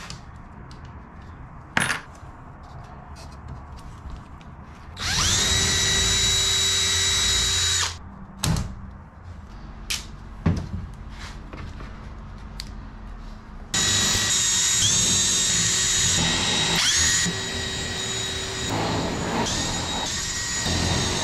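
Power drill running in two runs: it spins up to a steady whine for about three seconds, then runs again from just past the middle to the end, with brief dips in pitch as the bit loads up. It is drilling holes in an aluminium aircraft wing spar. A few sharp knocks of handling come before and between the runs.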